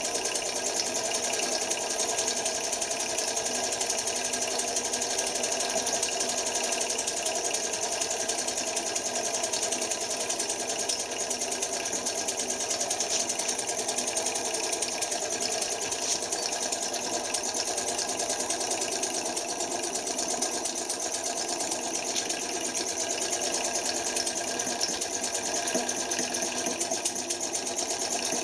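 Homemade single-cylinder four-stroke spark-ignition engine with a rotary valve and glass cylinder, running steadily on petrol vapour with a fast, even mechanical clatter.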